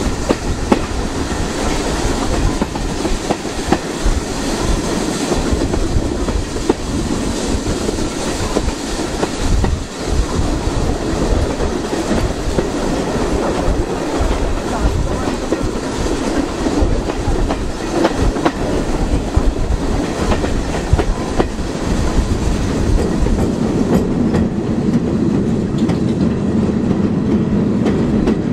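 Passenger coaches running along the line, heard from an open carriage window: a steady rumble of wheels on rail with occasional sharp clicks. Near the end the sound deepens into a stronger low hum as the train runs onto a low bridge.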